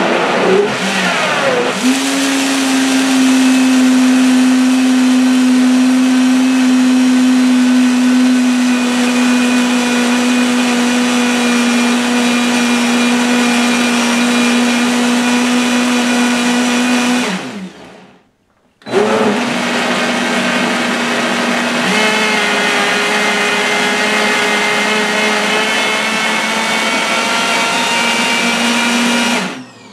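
Countertop blender running on high, blending coconut meat with coconut water. The motor winds up over the first two seconds and runs steadily, then spins down and stops about 17 seconds in. A second later it starts again and runs until it is switched off near the end.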